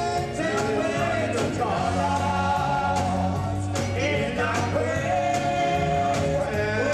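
Gospel choir singing in full voice, backed by instruments with a steady beat.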